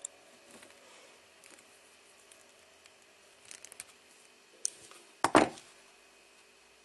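Side cutters snipping off excess soldered wire ends on a small circuit board: a sharp snip at the start, a few light clicks of handling, then a louder clack a little past five seconds in.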